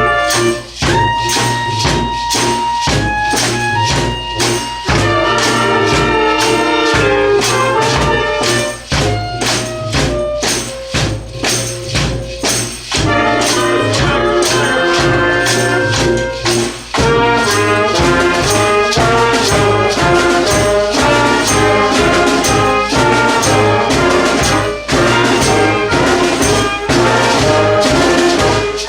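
A street band of horns, saxophones and percussion playing a rock-style tune over a steady drum beat, with held horn notes.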